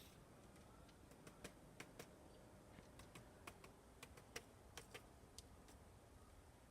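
Faint, irregularly spaced taps, a dozen or more in a few seconds, of a woodpecker pecking at wood.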